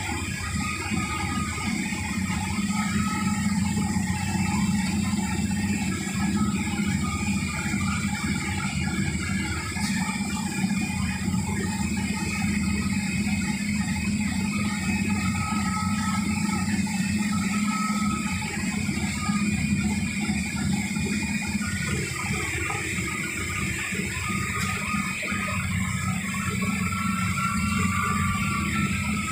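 A KSRTC bus heard from inside the cab as it drives: a steady low engine hum with the rattle of the bus body and the hiss of tyres on a wet road. Faint whining tones come and go.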